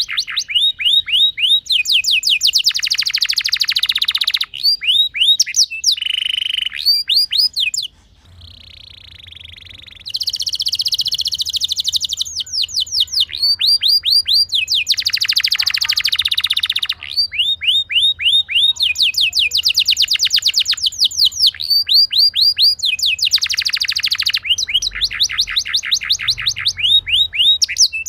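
Domestic canary singing a long rolling song: fast trills of rapidly repeated swept notes, each run lasting a second or two before switching to a different trill, with a briefly softer passage about eight seconds in.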